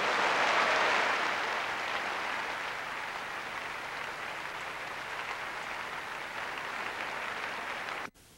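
Tennis crowd applauding after a point, loudest about a second in, then steady clapping that cuts off suddenly near the end.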